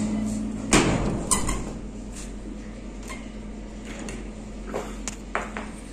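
A few sharp knocks and clicks as a window frame and its curtain are handled, the loudest about a second in, over a low steady hum.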